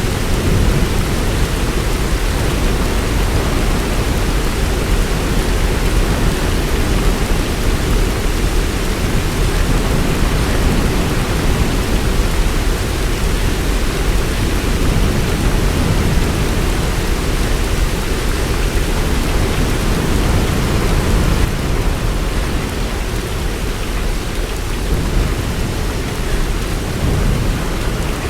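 Heavy rain falling steadily, with a continuous deep rumble underneath and no separate thunderclaps.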